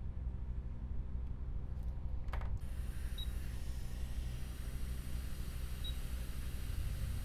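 A steady low hum, then a click about two and a half seconds in, after which a steady hiss of blowing air starts: a hot air rework station heating a small diode to desolder it from the logic board. Two faint short beeps sound during the hiss.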